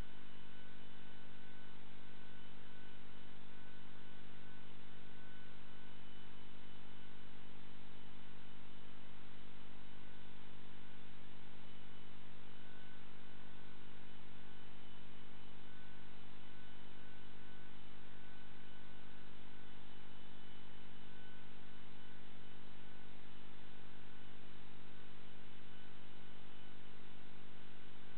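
Steady electrical hum over a faint hiss, unchanging, with no knocks or clicks on top.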